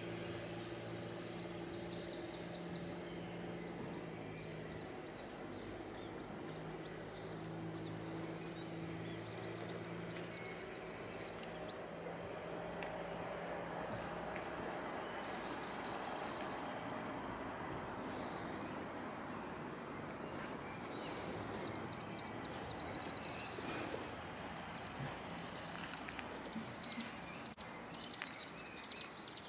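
Songbirds calling and trilling repeatedly over a steady outdoor background hum. A low, steady engine drone is heard through roughly the first twelve seconds, then fades.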